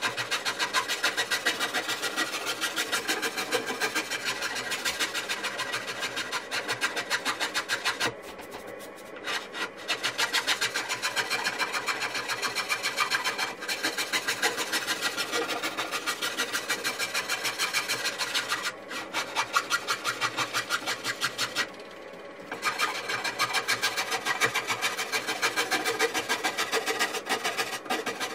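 Hand rasp scraping along the live edge of a zelkova slab in quick, even back-and-forth strokes, grinding off decayed wood. The strokes stop briefly twice, about a third of the way in and again about three-quarters through.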